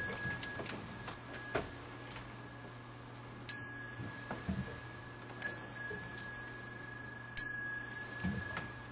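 Small Buddhist bowl bell struck three times, about two seconds apart, each strike ringing on with a steady high tone; the strikes cue the assembly's bows to the Buddha.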